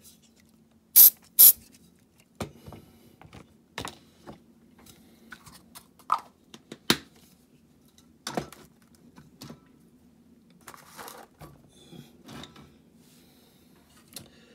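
Small hand tools and model parts being handled at a workbench: two loud sharp clacks about a second in, then scattered clicks, taps and short scrapes.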